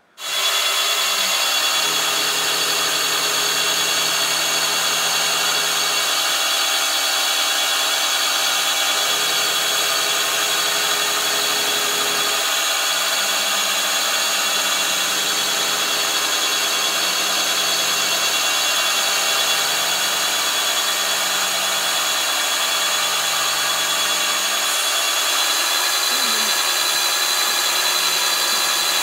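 An end mill on a CNC milling machine cutting aluminium, a loud, steady spindle whine and cutting noise. Lower tones underneath change every few seconds as the cut moves along.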